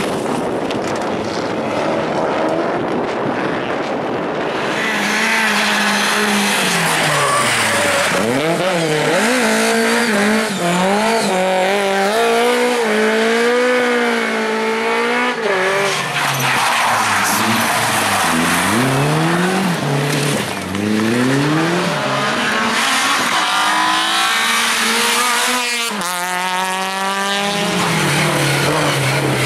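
Rally car engine driven hard, its note rising and falling again and again through the gears as it lifts and accelerates, with tyres squealing. About 26 seconds in the note drops suddenly and then climbs fast under full throttle.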